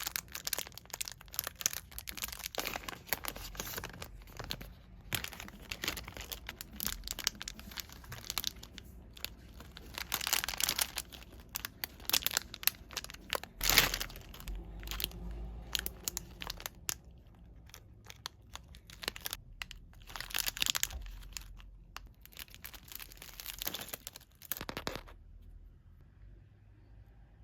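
Plastic packaging crinkling and tearing as gacha toys are unwrapped, in dense crackling bursts with one sharp snap about 14 seconds in; it dies down near the end.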